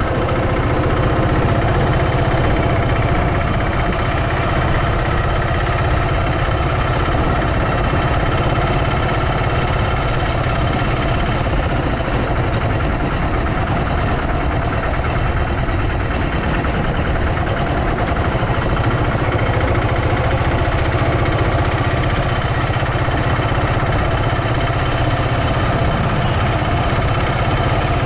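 Auto-rickshaw engine running steadily under way, heard from inside the moving rickshaw with a constant low hum and road noise.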